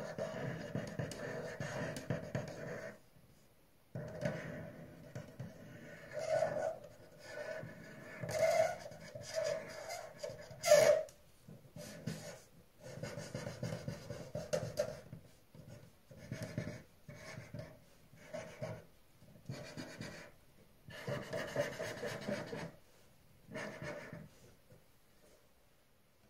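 Felt-tip pen drawing on paper: irregular short scratching strokes, some quick and some drawn out, with brief pauses between lines, stopping near the end.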